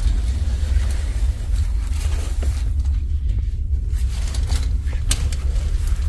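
Steady low rumble throughout, with soft rustling and a few light clicks as heavy cabin curtains are drawn back along their track.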